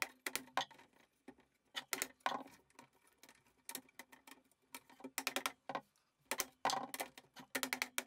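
Rubber mallet tapping a 3D-printed plastic end piece onto carbon fibre tubes: short dull knocks in quick groups of a few blows, because the part is a really tight fit.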